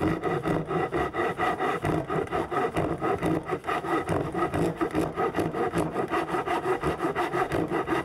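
Japanese pull saw ripping a wooden board along the grain with its coarse rip teeth, in a quick, even back-and-forth rhythm of rasping strokes.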